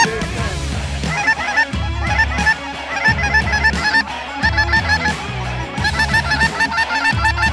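A flock of cackling geese calling, a dense chatter of rapid, short, high-pitched yelps, over background music.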